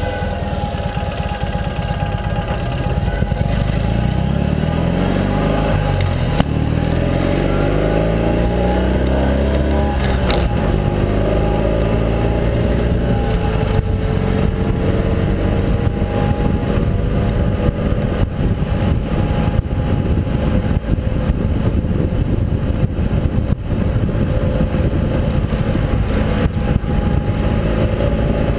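Ural sidecar motorcycle's air-cooled flat-twin engine running under way, with wind and road noise. The engine note rises and falls over the first ten seconds or so, then holds steady.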